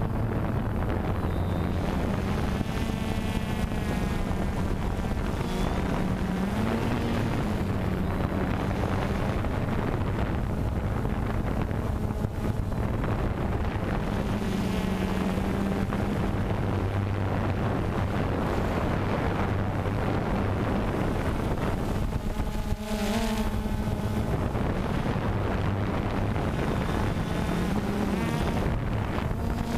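DJI Phantom 2 quadcopter's electric motors and propellers buzzing steadily in flight, heard close up from the drone itself. The pitch drifts up and down slightly as the motors adjust, with wind noise on the microphone.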